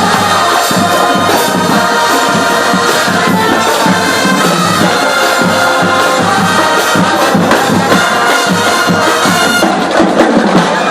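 A drum and bugle corps playing: brass bugles holding notes over steady marching-drum strokes.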